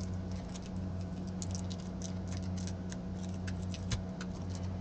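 Light, irregular clicks and scratches of hands handling a disassembled remote control's circuit board and plastic case, with one louder tap about four seconds in, over a steady low hum.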